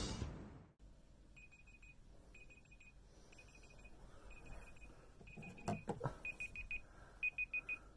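Mobile phone alarm beeping: quick clusters of high beeps about once a second, getting louder toward the end. There is a short knock and rustle of bedding a little past the middle. A tail of music fades out at the very start.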